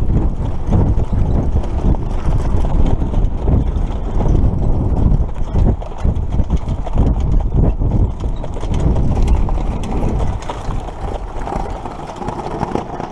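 Hoofbeats of a Standardbred pacer on a dirt track, heard from the sulky behind it, over a heavy low rumble of wind on the helmet-mounted microphone. The sound grows quieter over the last couple of seconds.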